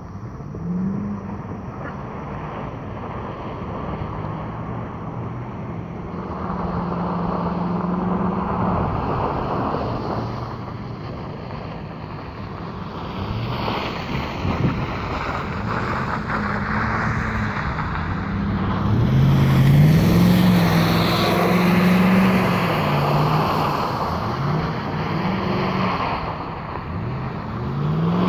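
An engine running, its pitch rising and falling again and again as it is revved, over a steady rushing hiss.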